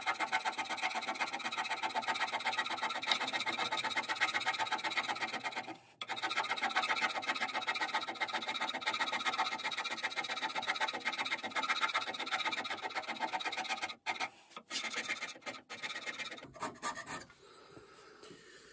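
Scraper cutting the cast-iron toolpost seat of a lathe topslide in fast, even strokes, about five a second: roughing passes to bring the seat flat. The strokes pause briefly about six seconds in, turn sparse after about fourteen seconds, and stop near the end.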